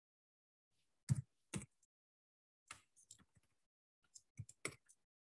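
Computer keyboard keys clicking as values are typed: two louder keystrokes about a second in, then small clusters of lighter keystrokes in the middle and near the end, with short silences between.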